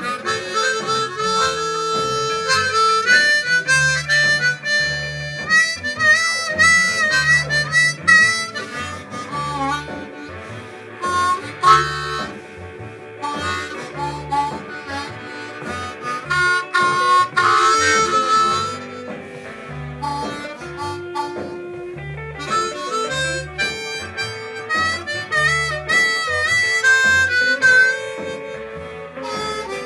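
Blues harmonica playing melody lines over a blues band recording with a steady, repeating bass line.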